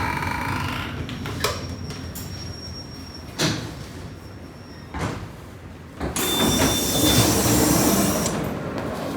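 Pneumatic sliding doors of an ED4MKU electric train working over the train's low steady rumble. Several separate knocks come over the first six seconds, then a loud hiss with a thin high tone lasts about two seconds.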